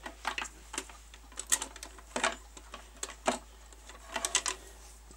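Irregular light clicks and knocks, a few a second, from a plastic mains plug and its flex being handled.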